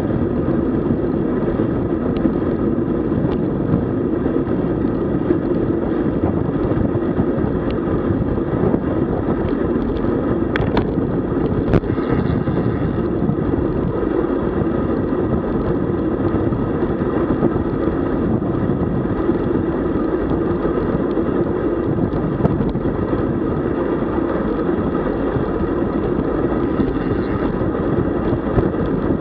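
Steady wind rushing over the microphone of a camera riding on a moving road bicycle, mixed with tyre and road noise. A couple of short clicks come about halfway through.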